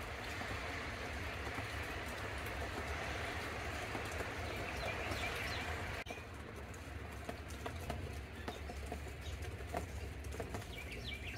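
Birds chirping a few times, about five seconds in and again near the end, over a steady outdoor hiss with a low rumble.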